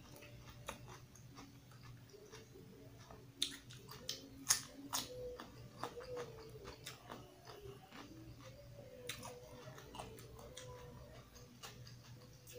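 Close-up chewing of crisp raw vegetables, with sharp crunches that come in clusters about three and a half to five seconds in and again around nine to ten seconds.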